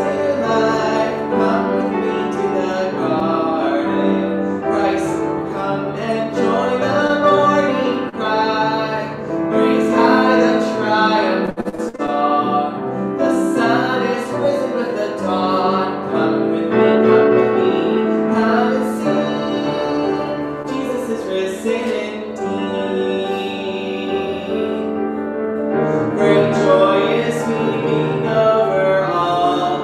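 Music: a piano playing a hymn with a singing voice over it.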